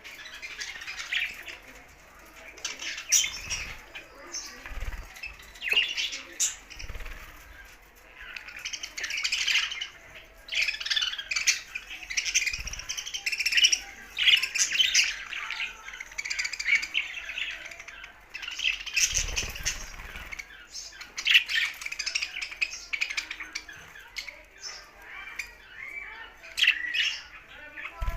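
Budgerigars chattering and warbling continuously, with mixed chirps and squawks from several birds and some sharp clicks.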